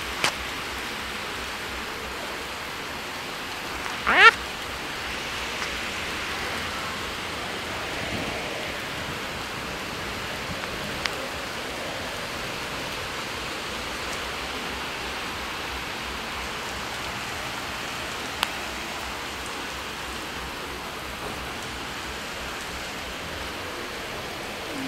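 Heavy rain falling onto a flooded street: a steady, even hiss. About four seconds in, a brief rising squeak stands out as the loudest sound.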